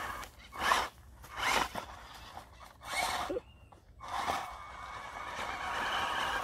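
Brushless electric motor of a DEERRC RC buggy whining in three short throttle bursts, then a longer steady run from about four seconds in, its tires spinning in loose sand for lack of grip.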